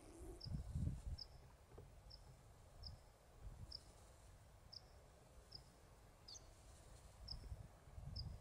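Faint outdoor ambience: a short, high chirp repeating about once a second, over gusts of wind rumbling on the microphone, strongest about a second in and again near the end.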